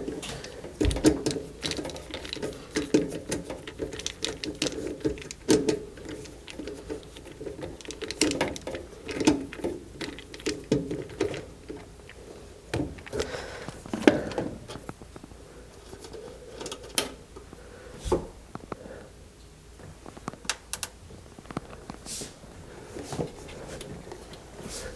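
Irregular clicks, taps and knocks of hands and tools working on a gas furnace's draft inducer motor assembly while its ground wire is freed. The sharpest knocks come about a second in and near 18 seconds in.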